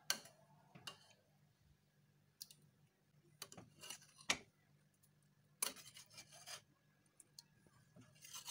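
A metal spoon scraping and clicking against stainless steel pots in scattered strokes, with a few quick scrapes in a row about halfway through, as soft rendered fat is scooped out of one pot and dropped onto the meat in another.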